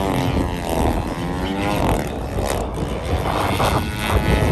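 Skywing Edge 540 radio-controlled aerobatic model plane flying past, its propeller and motor note rising and falling in pitch. The note steadies near the end.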